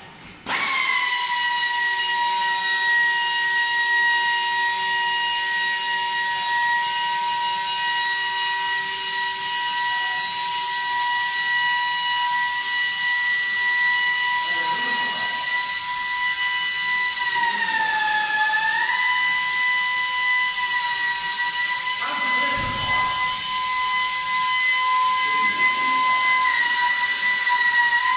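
Polishing spindle on a six-axis robot arm, spinning a polishing pad with a steady high-pitched whine. The whine's pitch sags briefly about eighteen seconds in, then recovers.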